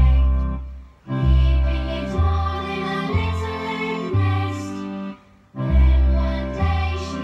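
A song playing, with singing over a bass line of long held notes that change about once a second; it breaks off briefly about a second in and again about five seconds in.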